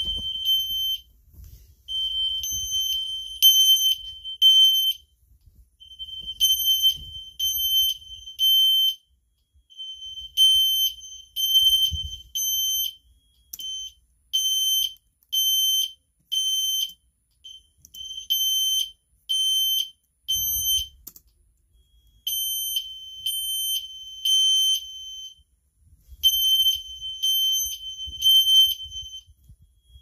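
Fire alarm horns sounding: a high, steady-pitched tone repeatedly switching on and off in short pulses, with the pulses not quite in step.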